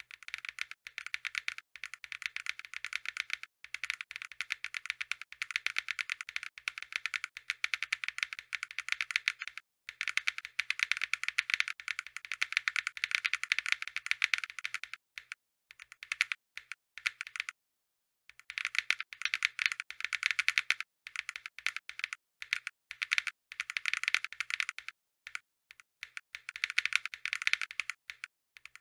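Mechanical keyboard with Banana Split linear switches typed on quickly: a fast, dense run of key clacks, with brief pauses about ten seconds in, from about fifteen to eighteen seconds, and near twenty-five seconds.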